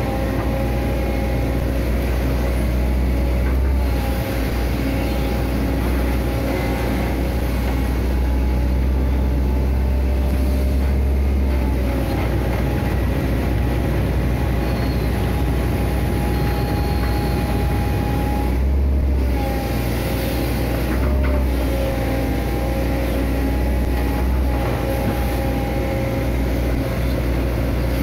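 Amphibious Hitachi Zaxis 130 excavator's diesel engine and hydraulics running steadily while digging, with a deep hum and a steady whine that dips briefly in pitch a few times.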